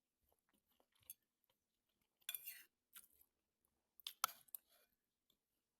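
Quiet eating sounds of a person chewing a mouthful of rice: a few short smacks and clicks, the loudest about two and four seconds in.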